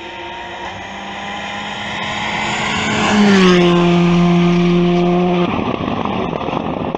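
Rally car driving past at speed, its engine note growing louder as it approaches and dropping in pitch as it passes close about three seconds in. The engine then holds a steady note and stops abruptly about five and a half seconds in, leaving a rough noise.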